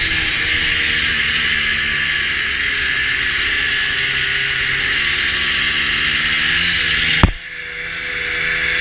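Snowmobile running at a steady cruise, its engine under a loud hiss of track and snow. About seven seconds in there is one sharp knock, and the sound drops to a quieter engine hum.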